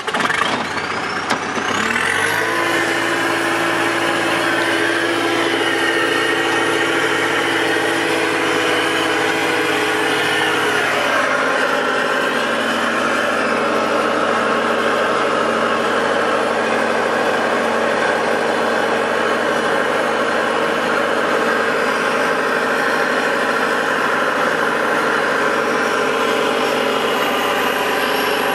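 A vehicle engine starts up at the very beginning, then runs steadily as the vehicle drives slowly along, its tone shifting about eleven seconds in.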